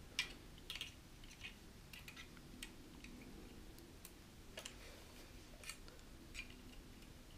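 Faint, irregular metal clicks and taps as a hex key is fitted into and turned in the set screws of a rotating focuser's adapter ring, snugging them down, with the metal focuser body handled between screws. The sharpest click comes just after the start.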